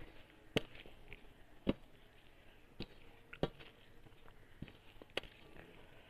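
Fingers mixing rice and prawn curry on a metal plate, with about six sharp clicks as the fingers strike the plate.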